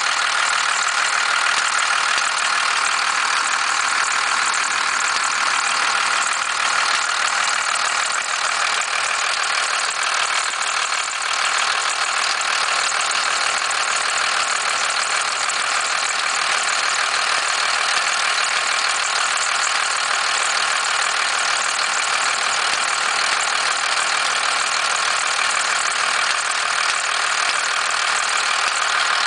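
1991.5 First Gen Cummins 12-valve 5.9-litre inline-six diesel idling steadily with a knock and rattle that the owner cannot place.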